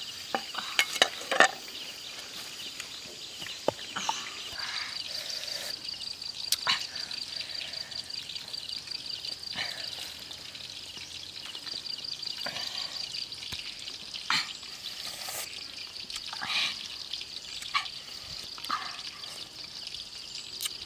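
A kitchen knife tapping on a wooden cutting board several times in the first second or two as limes are sliced, then scattered knocks and scrapes, over a steady, high, pulsing drone of forest insects.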